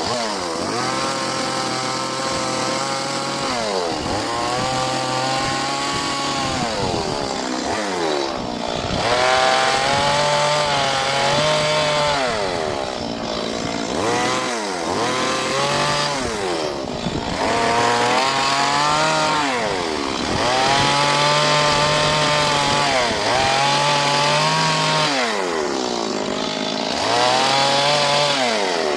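Two-stroke chainsaw carving into wood, the engine revving up and sagging again and again as the chain bites in and is eased off.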